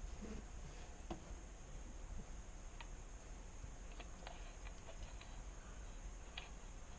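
A few faint, sharp clicks at irregular intervals over a low steady hum.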